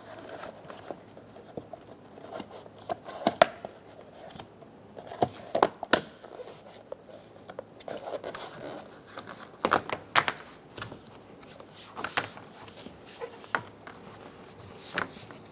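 Gloved hands pressing plastic window trim and a rubber door seal into place on a truck door: low rubbing and crinkling with scattered sharp plastic clicks and taps as the pieces seat.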